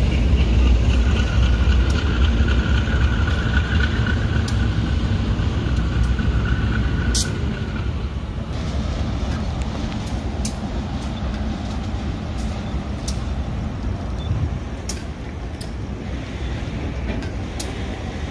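Diesel-electric freight locomotives, including new GE AC44i units, shunting slowly through a rail yard: a deep engine rumble that fades gradually, with scattered sharp clicks and knocks and a faint steady whine during the first several seconds.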